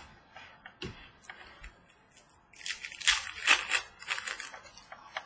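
Trading cards being handled at a table: a few light taps and clicks, then from about two and a half seconds in a stretch of rustling and sliding card stock that lasts about two seconds.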